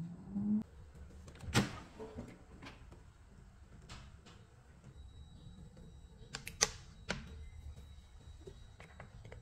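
Air fryer fan spinning up briefly with a rising hum that cuts off, then a series of sharp clicks and clunks from the air fryer and its basket being handled, the loudest about a second and a half in and another pair near the end.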